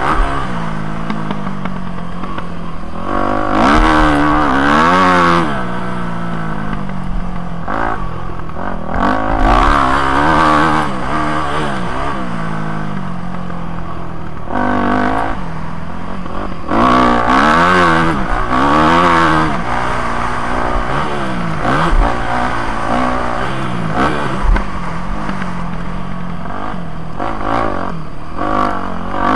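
Yamaha motocross bike's engine being ridden hard, revs climbing and dropping again and again with throttle and gear changes. Two short knocks sound about two-thirds of the way through.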